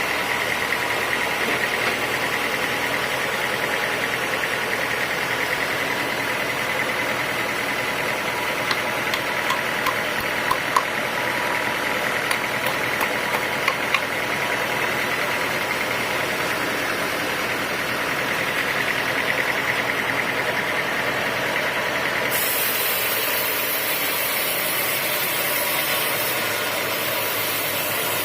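Sawmill saw machinery running steadily, with a few short clicks around the middle; the sound changes abruptly a little over two-thirds of the way through.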